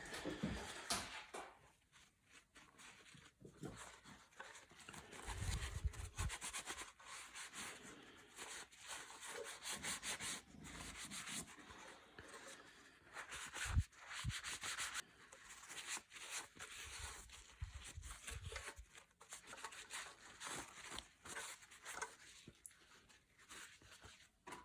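Packaging being handled during an unboxing: irregular rustling, rubbing and scraping of cardboard and wrapping, with a soft low thump about five seconds in and a sharp knock about halfway through.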